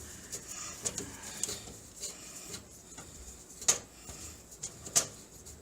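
Screwdriver working a motherboard screw in a metal PC case: faint scraping ticks with a few sharp metallic clicks, the loudest about two-thirds through and at the very end.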